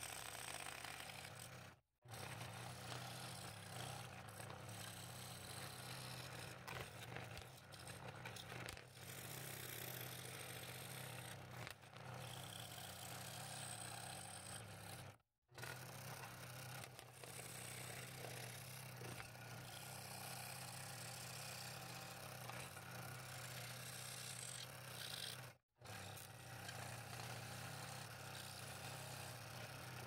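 Scroll saw running and cutting thin walnut: a steady motor hum under the even rasp of the blade in the wood. The sound cuts out briefly three times, about 2, 15 and 26 seconds in.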